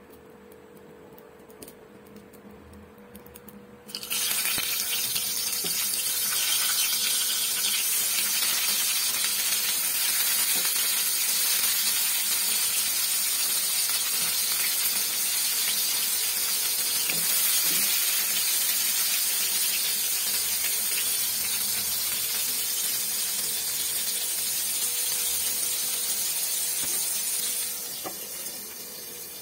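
Eggplant slices sizzling loudly as they fry in hot mustard oil in a pan. The sizzle starts suddenly about four seconds in and quietens near the end, when the lid is on the pan.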